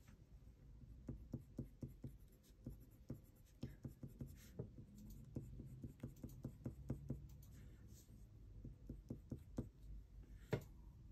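Black colored pencil scratching faintly across paper in many quick, irregular shading strokes.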